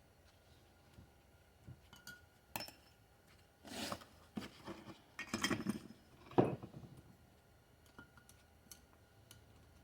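Small metal parts of a transmission oil pump clinking and knocking as they are handled and set down, a handful of separate clinks with the loudest about six and a half seconds in.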